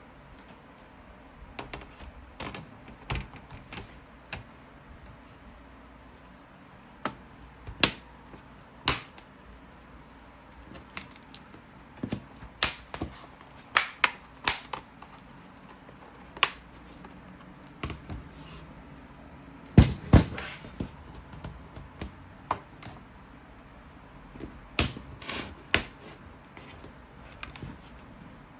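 Irregular sharp clicks and taps, sometimes single and sometimes in quick clusters, with a louder double knock about twenty seconds in.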